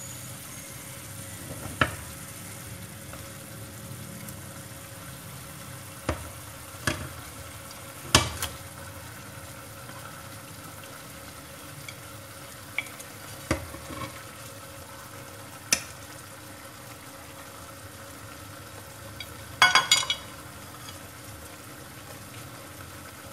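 Fish sauce and sugar mixture sizzling steadily in a frying pan as pieces of fried fish are laid into it. Occasional sharp clicks of chopsticks against the plate and pan come through, with a short clatter near the end.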